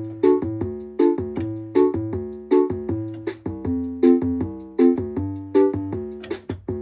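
Casiotone 401 home keyboard playing its built-in rhythm with auto-chord accompaniment: a steady preset drum beat with repeating chords and a bass line, the chord changing about halfway through.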